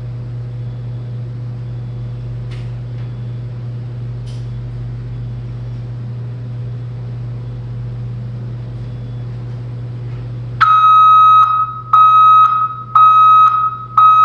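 Dump truck's diesel engine idling steadily; near the end its backup alarm starts, four loud beeps about a second apart, the signal that the truck is in reverse.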